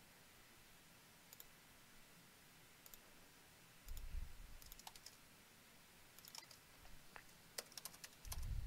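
Faint clicking of a computer mouse and keyboard: scattered single clicks, then a quicker run of key taps near the end. Two low thuds, one about four seconds in and one near the end.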